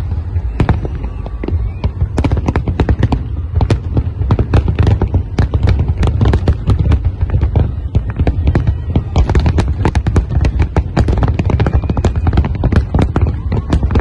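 Large fireworks display at full barrage: a rapid, unbroken run of bangs from many shells bursting at once, over a steady low rumble.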